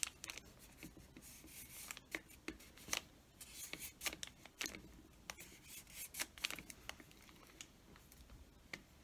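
Hands pressing and smoothing a paper cut-out onto a plastic bottle: soft paper rubbing and rustling, with scattered light clicks and taps of fingers on the bottle.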